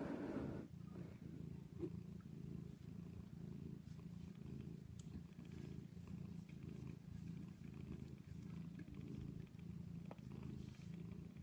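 Cats purring steadily, a low continuous rumble, from a mother tabby nursing her kittens. A brief rustle comes at the very start.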